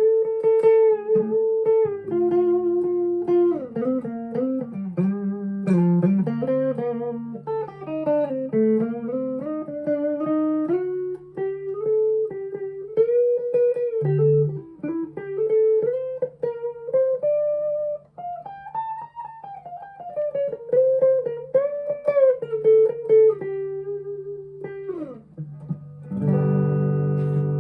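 Harley Benton SC-500 electric guitar on its neck pickup alone, played clean through a Fender Mustang LT25 amp with bass, treble and gain at 12 o'clock. It plays a slow single-note melody with slides and bends over a held low note, and a strummed chord comes in near the end. The player calls the neck pickup's tone muddy.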